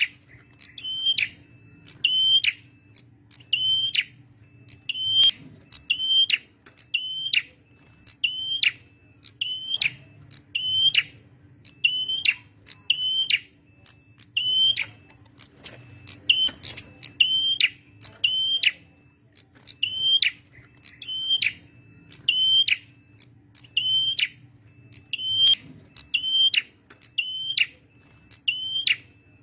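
Male prenjak merah bird calling a sharp, high chirp with a quick downward tail, repeated about once a second over and over. A faint steady low hum runs underneath.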